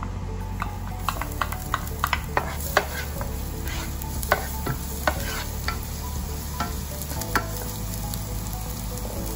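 Minced garlic frying in hot oil, sizzling with scattered sharp crackles and pops as a wooden spoon stirs it around the pan.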